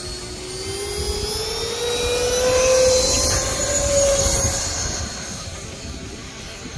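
Freewing L-39 Albatros 80 mm electric ducted-fan jets whining on the takeoff run, the whine rising in pitch and growing louder to a peak about three to four seconds in, then fading as the jets lift off and climb away.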